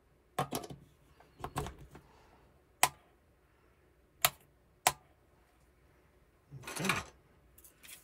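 A plug pushed into a metal power-bar outlet with a couple of scraping knocks, then the power bar's illuminated rocker switch clicked back and forth: three sharp clicks, the last two about half a second apart.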